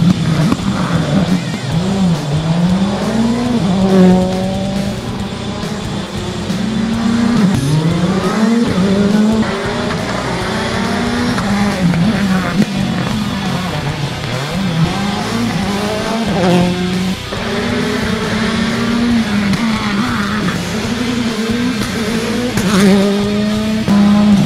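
Rally car engines revving hard as the cars pass one after another, the pitch climbing and dropping again and again through gear changes and lifts off the throttle.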